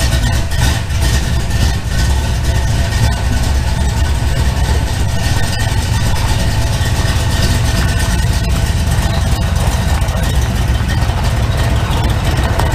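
Chevy Nova's engine running steadily at idle while the car rolls slowly out of the garage, a loud low rumble, distorted by the camera's microphone.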